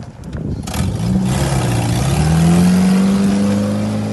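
Suzuki Vitara's 1.6-litre eight-valve engine revving up under load, its pitch climbing from about a second and a half in and then holding high. A brief rush of noise comes about a second in.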